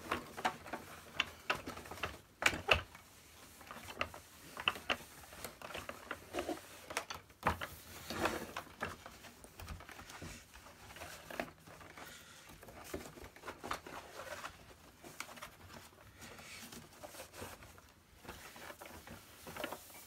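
Hands working on the plastic body of a Hoover PurePower Enigma vacuum cleaner during a clean-up: irregular clicks and knocks of plastic parts, with rubbing and rustling between them.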